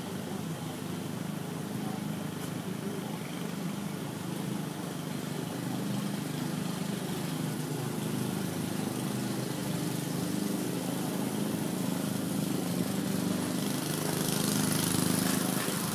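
Lawn mower engine running steadily, growing louder a few seconds before the end.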